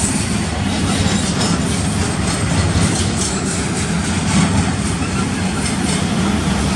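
Double-stack intermodal well cars of a freight train rolling past, a steady rumble of steel wheels on rail with repeated clicks as the wheels cross rail joints.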